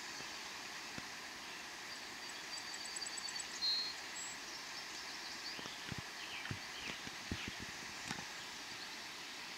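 Quiet riverside outdoor ambience: a steady faint hiss, with a few short high chirps about three seconds in and scattered faint taps.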